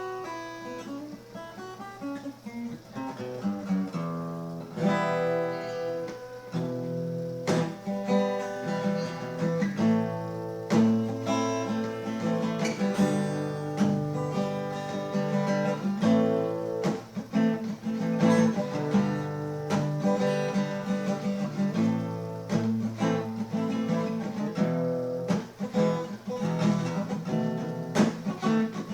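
Acoustic guitar playing: strummed chords mixed with plucked notes, with a sharp attack on each strum.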